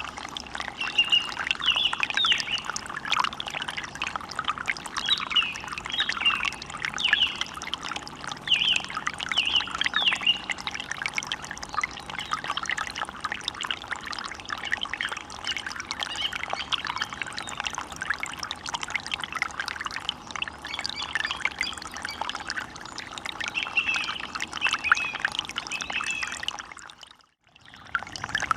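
Forest ambience: the steady rush of running water with many short bird chirps and calls over it. Near the end the whole sound drops out briefly, then comes back.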